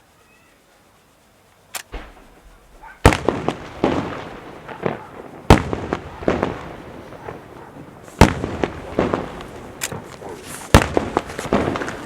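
Fireworks going off: a loud sharp bang every two to three seconds, each followed by crackling and rolling echoes. The first bang comes after a quiet second or two.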